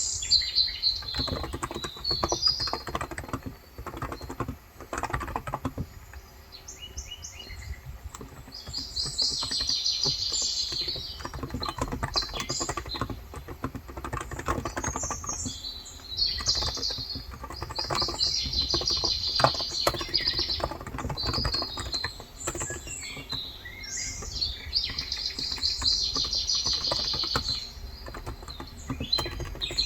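Typing on a Cox Endeavour electro-capacitive (Topre-style) keyboard with 35 g switches: a steady patter of soft keystrokes. Over it, birds chirp and trill in repeated high-pitched spells.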